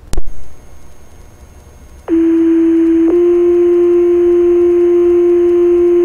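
Two-tone sequential fire pager alert over a dispatch radio channel: a steady low tone for about a second, then a slightly higher tone held about three seconds, setting off the firefighters' pagers. A sharp click and static hiss open the channel first.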